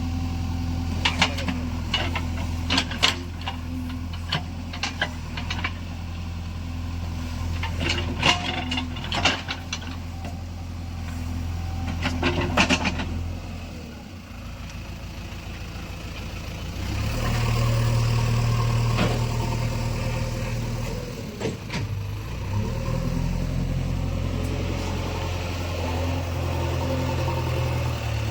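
JCB 3DX backhoe loader's diesel engine running as the machine works, with a string of sharp knocks and clanks in the first half. About halfway through the engine drops back briefly, then revs up and runs harder for the rest.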